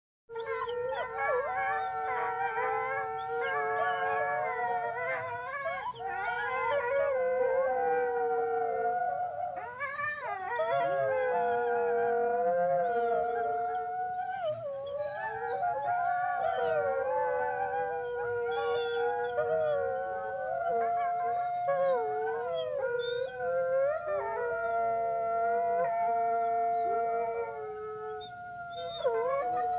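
A small pack of wolves howling together, several long overlapping howls at different pitches, some sliding up and down, with a few shorter yips.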